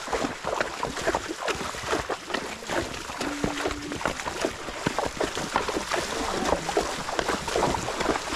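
Horses wading through a shallow river, hooves splashing the water in a quick, irregular patter.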